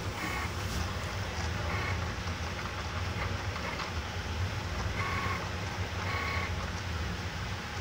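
Stepper motors of a cutting plotter converted to a pen plotter, running as the carriage draws with a marker pen: a steady low hum with about four short, higher-pitched whines as the pen moves.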